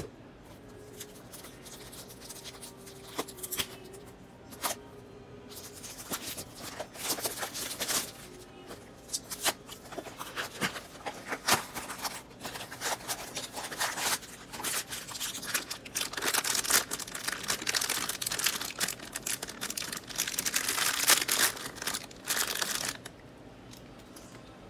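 Mystery-mini blind box being opened by hand: cardboard packaging and the plastic wrapping inside tearing and crinkling. A few taps come first, then a long run of rustling and crackling that is loudest near the end.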